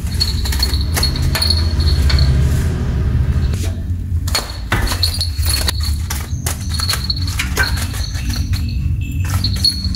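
Light clicks and taps from a kitten playing on a tiled floor close to the phone, over a steady low hum. Crickets chirp in the background in stretches.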